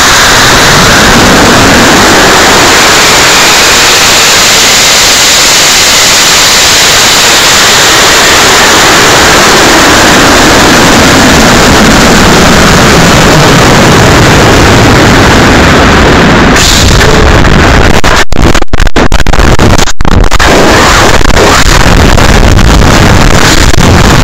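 Nitrous-oxide hybrid rocket motor ignites suddenly and burns with a loud, steady rushing noise, heard on the rocket's own onboard camera and overloading its microphone. About two-thirds of the way through the sound changes, with a few brief cut-outs.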